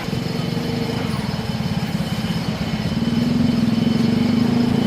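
An engine running with a rapid, even pulse, its pitch and level rising a little about three seconds in.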